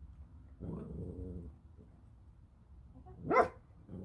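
Small dog vocalising: a low, drawn-out sound about half a second in, then one short, sharp, loud bark about three seconds in.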